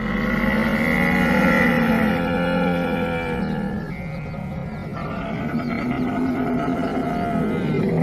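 Camel vocalising: a loud, long, guttural call that starts suddenly and shifts in pitch about halfway through.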